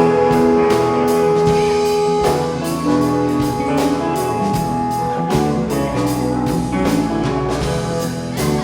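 Live rock band playing an instrumental passage: sustained guitar notes over a steady drum-kit beat, without vocals.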